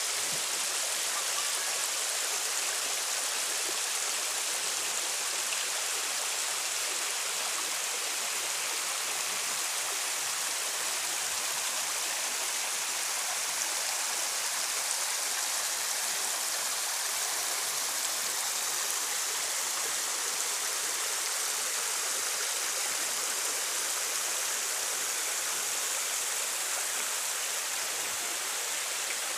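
Small stream of water running and splashing over flat shale rock below a trickling waterfall, a steady hiss.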